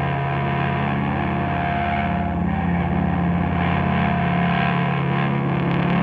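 Experimental drone music: sustained low tones held steady under a dense, hazy layer of processed sound.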